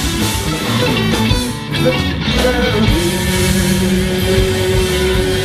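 Live rock band playing an instrumental passage with guitar, bass and drums; about three seconds in, a single long note is held over the band.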